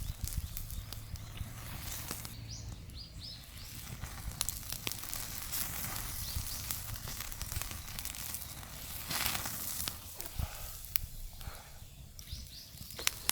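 Wood bonfire crackling with scattered sharp pops over a steady low rumble. A bird chirps briefly a few times about two to three seconds in.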